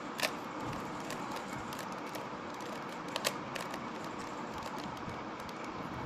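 Layers of a plastic 3x3 Rubik's cube being turned by hand, clicking as they snap into place: one sharp click about a quarter second in, a quick double click about three seconds in, and lighter clicks between, over a steady background hiss.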